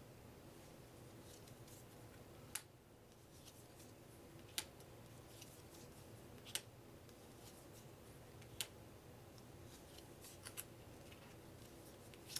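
UNO playing cards being handled and set down one at a time, each giving a sharp click about every two seconds, with fainter ticks between, against near silence.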